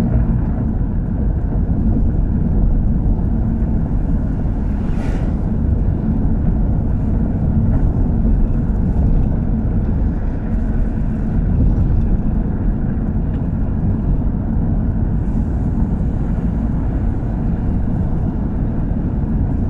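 Steady engine and road rumble of a car driving, heard from inside the cabin, with a low hum running throughout.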